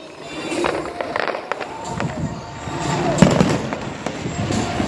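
Aerial fireworks going off: a string of bangs and crackles, the loudest about three seconds in.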